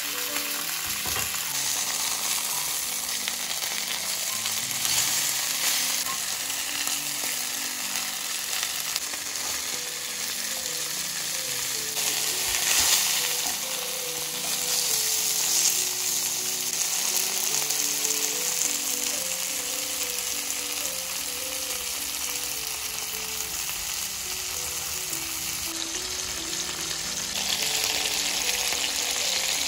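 Chicken breast frying in olive oil in a pan, a steady sizzle that swells louder a few times. Quiet background music with a simple stepping melody plays underneath.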